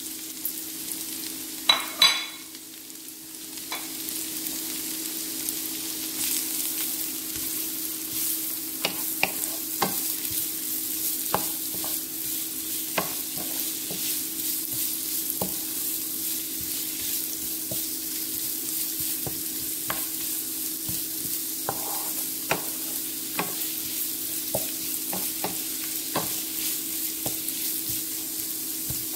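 Oil sizzling in a frying pan as shredded carrots are tipped in with a clatter about two seconds in, the sizzle dropping briefly and then building again. A wooden spatula stirs the vegetables with scattered light taps and scrapes against the pan, over a steady low hum.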